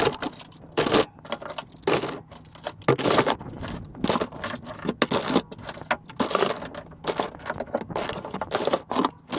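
Toy guns clattering and scraping against one another and the cardboard box as they are rummaged through and picked up: irregular knocks and rattles.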